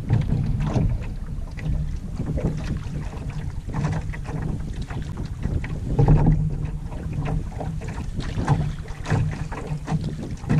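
Water lapping and splashing irregularly against a moving Clipper canoe's hull, with wind buffeting the microphone as a steady low rumble.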